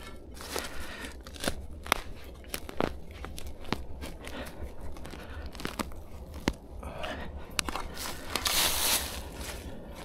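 Short Fiskars spade digging into forest soil under dry leaf litter: a string of sharp crunches and scrapes as the blade cuts the earth, with dry leaves crinkling, and a longer, louder scrape about eight and a half seconds in.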